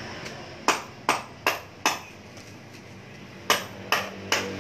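Hand hammer striking metal on concrete with a sharp, ringing clank: four quick, evenly spaced blows about a second in, then four more near the end.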